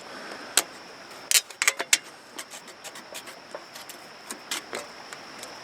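Aluminum foil crinkling in sharp, scattered crackles as a dull knife works through it, the strongest in the first two seconds.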